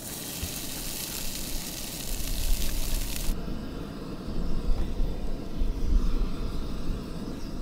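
Leftover noodles sizzling in a hot frying pan on a propane camp stove, a hiss that cuts off suddenly about three seconds in. A low rumble runs underneath.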